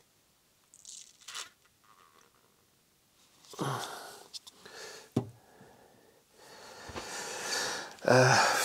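Handling noises in a workshop: a clear plastic plate is lifted off the oil-filled combustion chamber of a motorcycle cylinder head, with a sharp knock about five seconds in, then louder rustling and bumps near the end.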